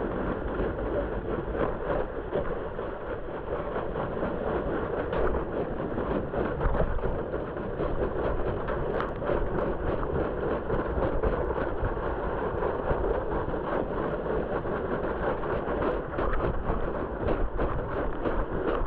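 Red plastic sled sliding over snow while towed by a dog: a steady scraping rumble of the hull on the snow, with many small crackles throughout.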